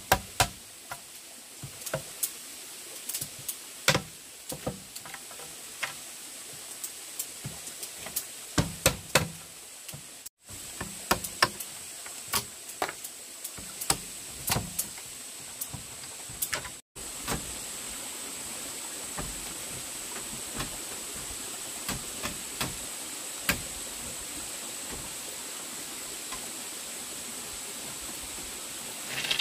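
Bamboo being worked by hand: irregular sharp knocks and taps over a steady hiss with a thin high whine. The sound breaks off twice, and in the later part the knocks grow sparse while the steady hiss carries on.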